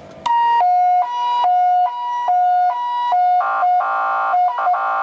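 The fire truck's two-tone emergency siren switches on and sounds a high–low alternating wail, changing pitch about every half second. Twice in the second half a lower buzzing tone sounds along with it.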